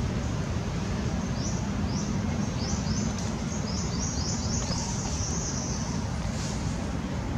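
Outdoor ambience: a steady low rumble with a small bird giving a run of quick, high chirps from about a second in until about five seconds in.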